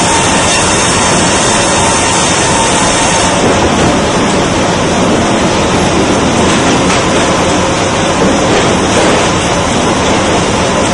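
Large sawmill band saw cutting through a log fed on the carriage, with the mill machinery running: a loud, steady mechanical noise without breaks.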